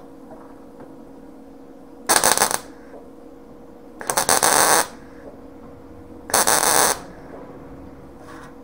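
MIG welder stitch-welding a sheet-steel patch panel onto a car's inner wheel tub: three short bursts of welding, each about half a second to a second long and a second or two apart, over a steady low hum.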